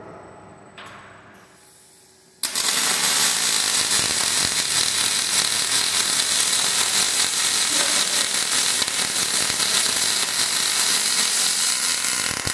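Robotic MIG welding arc striking about two and a half seconds in and burning steadily as the torch lays a weld along the steel truss: a loud, even crackling hiss that cuts off at the very end.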